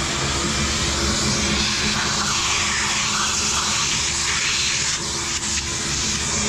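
Vacuum cleaner running steadily, sucking up foam insulation debris from around the anode rod port on top of an electric water heater.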